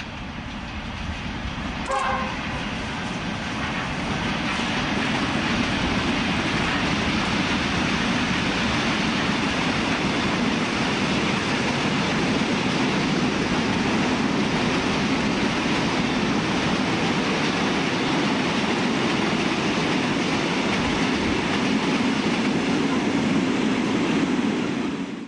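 Goods train hauled by four T-class diesel-electric locomotives passing close by. A short horn blast sounds about two seconds in. A steady loud rumble of the engines and the wagons rolling on the rails builds over the next few seconds and then holds.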